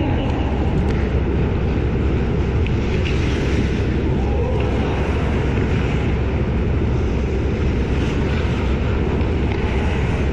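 Steady rumbling noise of an indoor ice hockey rink during play, picked up by a small wide-angle camera's microphone, with a few faint knocks and distant voices.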